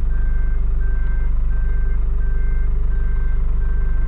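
Reversing alarm of a Hino cab-over box truck, which is weak: a steady single-tone beep repeating about three times every two seconds. It sounds over the low, steady drone of the truck's diesel engine, heard from inside the cab.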